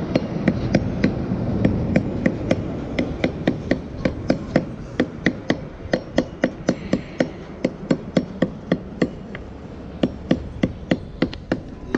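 Small hammer striking a lead sinker against a flat stone slab, crimping it onto a fishing net's lead line: quick, even taps about three a second, with a short break about nine seconds in.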